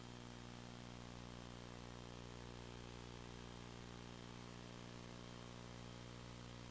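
Faint steady electrical hum with an even hiss over it, unchanging throughout.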